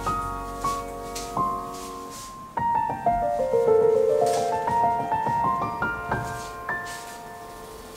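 Background piano music, with notes climbing in short rising runs.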